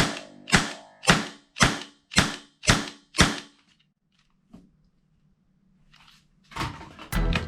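A toy gun firing seven shots in a row, about two a second, each a sharp crack with a short fading tail. A quiet pause with one faint click follows, then music starts near the end.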